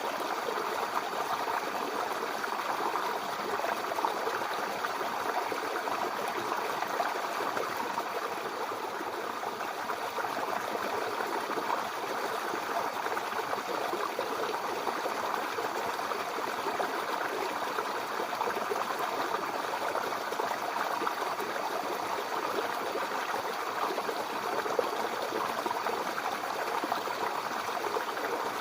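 Mountain river flowing steadily over rocks: an even, continuous rush of water.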